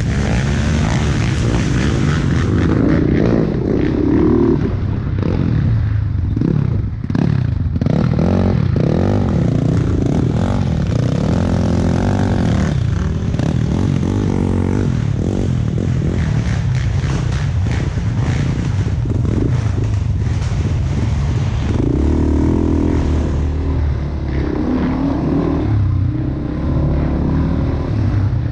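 ATV engine running, its pitch rising and falling again and again as the throttle is opened and eased off.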